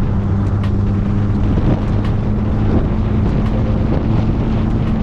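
Subaru Sambar kei truck driving at a steady engine speed, its engine loud through a side-exit Harley-Davidson motorcycle muffler, with wind noise on the microphone.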